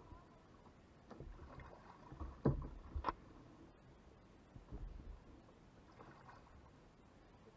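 Kayak paddling: irregular paddle strokes in the water, with a few low thumps, the loudest between two and three seconds in.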